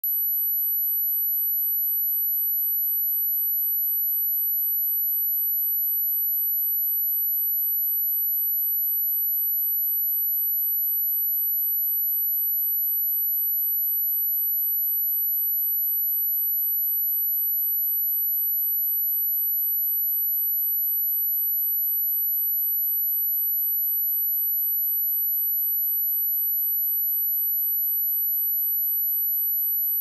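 A steady, very high-pitched pure sine tone at 11852 Hz, a speaker test tone, held at a constant level with nothing else.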